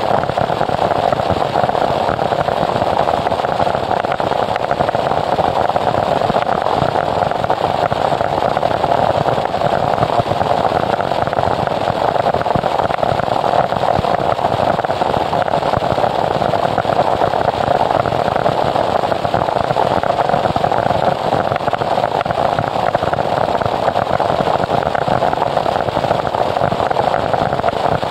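Noise music: a dense, unchanging wall of static with no beat or melody, its energy centred in the middle of the range, held at a steady loud level.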